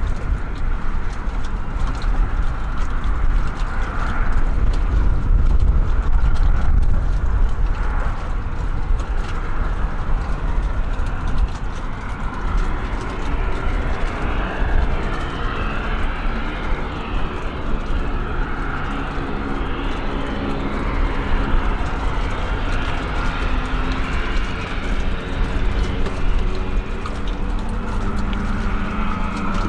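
DHC-3 Turbo Otter floatplane's turboprop engine running with the propeller turning as the plane taxis on the water. A steady rumble, with a droning tone that grows clearer and wavers in pitch from about halfway through.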